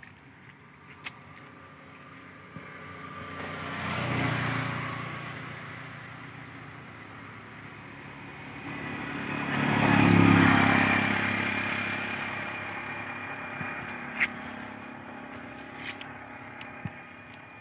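Two motor vehicles passing by one after the other, each engine rising and fading away: the first about four seconds in, the second louder about ten seconds in. A few light clicks near the end.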